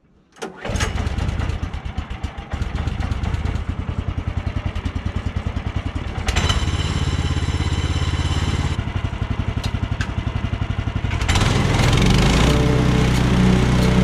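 Small gas engine of a Woodland Mills HM130 portable sawmill starting: it catches about half a second in and idles with a rhythmic chug. About eleven seconds in it is throttled up and runs faster and louder.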